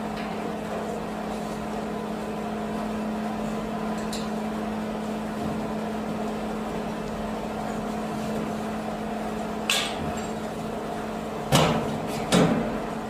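Steady mechanical hum of a running commercial boiler plant. Near the end come a few sharp metallic clicks as an Allen key turns the latch of the boiler's front casing panel.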